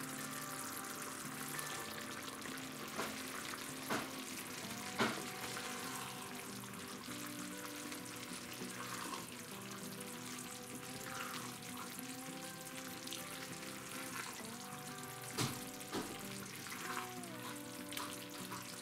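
Cream sauce bubbling and sizzling in a frying pan as pasta is tipped in and turned with a wooden spatula, with a few sharp knocks of the spatula against the pan.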